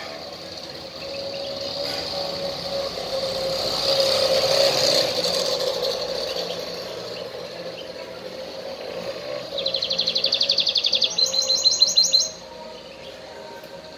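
Canary singing two fast trills of rapidly repeated notes back to back, the second pitched higher, cutting off suddenly. Before that, a rush of background noise swells and fades.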